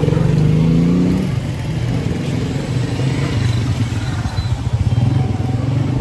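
A motor vehicle engine running close by, rising in pitch over the first second as it pulls away, then easing into a steady low engine hum of street traffic.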